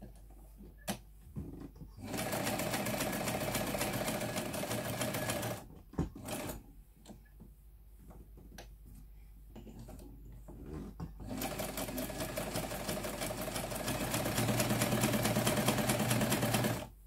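Jones M949 vintage electric sewing machine stitching a zigzag in two runs: one of a few seconds starting about two seconds in, then a few clicks, then a second, longer run from about eleven seconds that gets louder in its last few seconds and stops just before the end.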